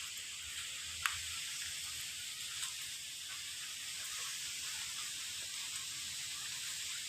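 Steady high-pitched hiss with a sharp snap about a second in and a softer one a little over a second and a half later.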